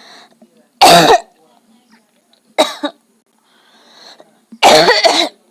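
A woman forcing dry coughs from the throat: three separate coughs about two seconds apart, the last one longer.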